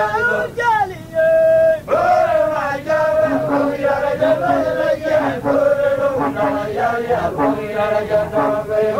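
Men singing a chanted song, with held and bending notes over a regular pulse.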